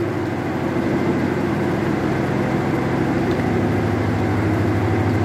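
Steady low hum of a diesel passenger train's engines running while it stands at the platform.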